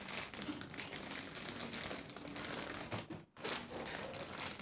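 Plastic packaging crinkling and rustling as it is pulled open by hand, with a brief pause about three seconds in.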